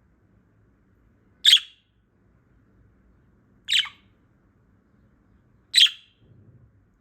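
Female budgerigar giving three short, loud chirping calls about two seconds apart.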